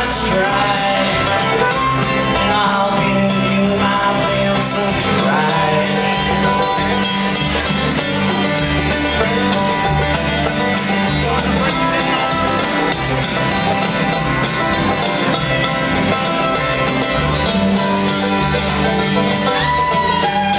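Live bluegrass band playing an instrumental break: banjo, acoustic guitar, mandolin, fiddle and upright bass, at a steady loud level.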